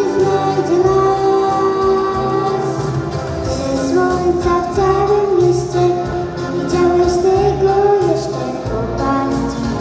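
A young girl singing a song into a microphone, holding long notes over an instrumental backing track with a steady, regular bass pattern.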